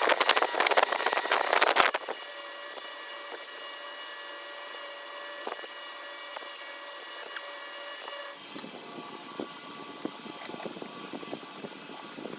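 A motor-driven wire wheel scrubbing a small screw with loud, scratchy grinding for about two seconds, then running on freely with a steady whine. About eight seconds in the whine stops and a lower rough noise takes over.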